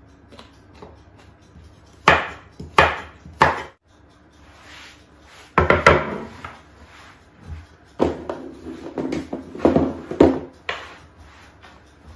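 Kitchen knife chopping on a wooden cutting board: three sharp chops about two seconds in, followed by further knocks and scrapes of the board and counter being handled.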